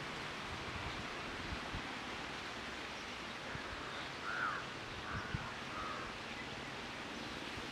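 Open-field ambience: a steady, even rustle of air and vegetation, with three faint, short bird calls about four to six seconds in.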